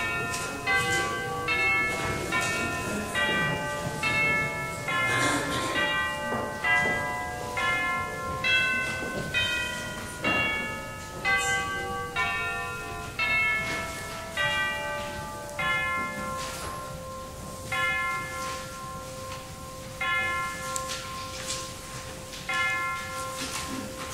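Church bells chiming a melody: one note struck about every 0.8 seconds, each at a different pitch and ringing on into the next.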